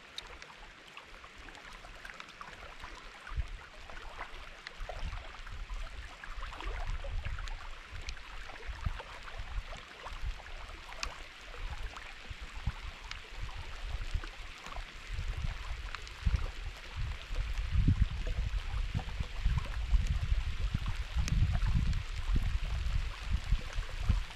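Light rain starting to fall: scattered raindrops ticking over a faint hiss, with wind buffeting the microphone in gusts that grow stronger in the second half.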